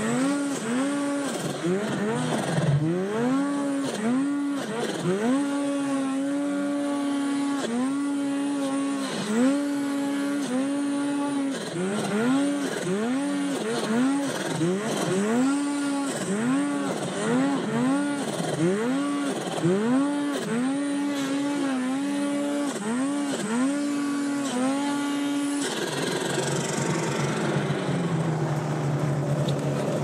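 Snowmobile engine revving up and down over and over, about once a second, as the sled is throttled through deep snow. About 26 seconds in it drops to a lower, steady idle as the sled comes to a stop.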